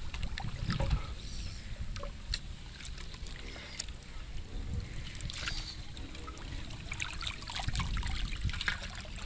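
Small water splashes and dribbling, with scattered short knocks over a low rumble of wind on the microphone.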